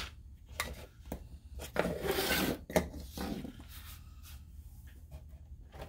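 Handling noises at a workbench: a sharp knock at the start, a few light clicks, then about a second of rubbing and scraping and another click, as tools and pattern material are handled.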